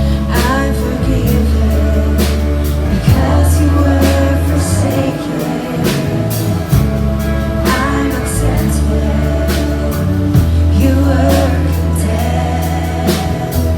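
Gospel worship music: singing over a band with a steady bass line and regular drum beats.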